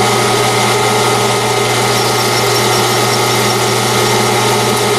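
Metal lathe running steadily at a slow spindle speed of about 70 RPM while its internal threading tool takes a light skim pass in a titanium tube; the motor and gear train give an even hum with several steady whining tones.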